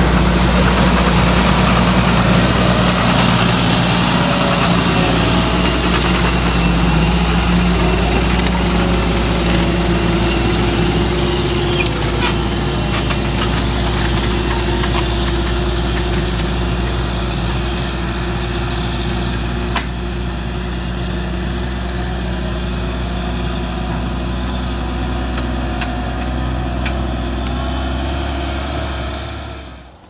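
Large farm tractor's diesel engine running steadily under load while pulling a multi-furrow reversible plough, with one sharp click about twenty seconds in. The sound fades out near the end.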